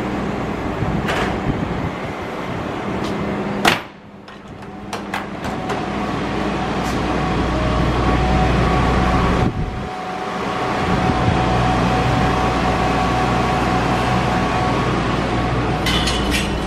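Meitetsu 6000 series electric train: the steady hum and rumble of the car's equipment, with a sharp click about four seconds in. Near the end there are a few more clicks, as the train pulls out of the platform.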